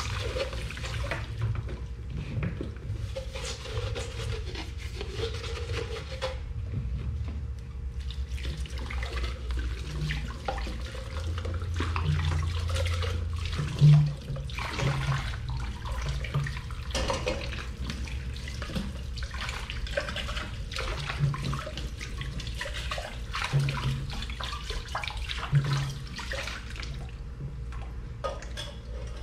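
Dishes being washed by hand at a kitchen sink: tap water running and splashing, with dishes clinking and knocking against each other and one sharp knock about halfway through.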